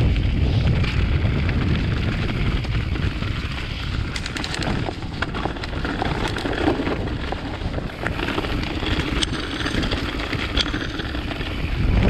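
Wind buffeting the microphones of a chest-mounted action camera while a mountain bike rolls down a leaf-covered dirt trail, with tyre noise over the leaves and scattered sharp clicks and rattles from the ride. The wind noise is heavy and steady, with the clicks coming thickest about four to seven seconds in.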